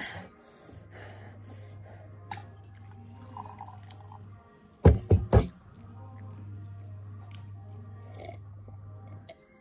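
Water poured from a stainless steel kettle into a ceramic mug, with a few loud knocks about five seconds in.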